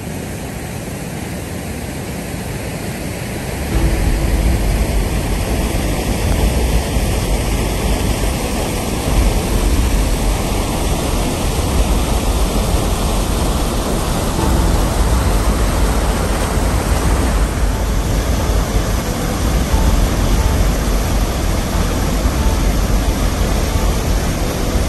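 Water pouring over a low dam spillway, a steady rushing noise, with a heavier low rumble coming in about four seconds in.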